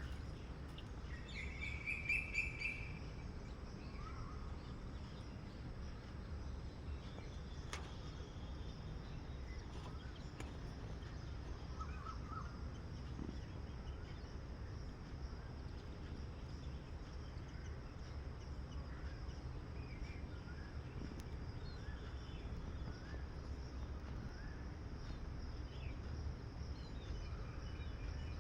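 Outdoor ambience: scattered short bird chirps over a steady low rumble, with one louder trilled call about two seconds in.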